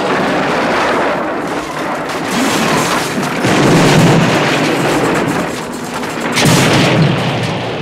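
Film sound effect of a truck exploding: a sudden loud blast, then a long fiery roar that swells again around four seconds in, with a second burst about six and a half seconds in.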